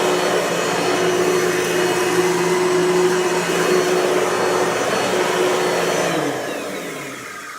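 Kenmore Power Center vacuum cleaner running steadily with its motor's hum and airflow noise, including a bearing noise. It is switched off about six seconds in, and the motor winds down with a falling pitch.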